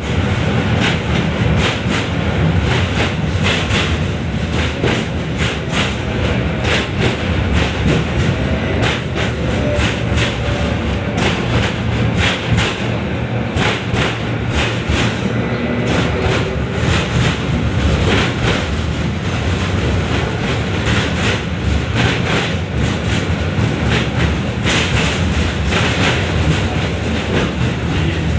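71-605RM13 tram car's wheels clattering over rail joints as it runs: a steady low rumble with frequent, irregular sharp clicks.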